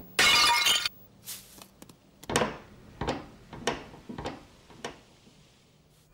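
Glass shattering in one short loud crash, followed by a string of separate clinks and knocks, each ringing out briefly, about every half second and fading away.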